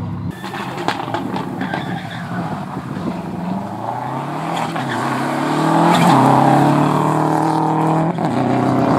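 Subaru Impreza rally car's flat-four boxer engine accelerating hard through the gears as it passes. The pitch climbs and drops back at each upshift, and the engine is loudest about six seconds in.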